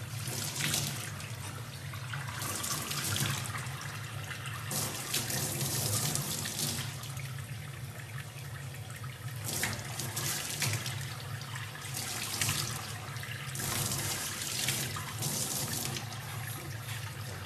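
Tap water running steadily from a faucet into a stainless steel sink, splashing louder every few seconds as a young chimpanzee's hands break the stream.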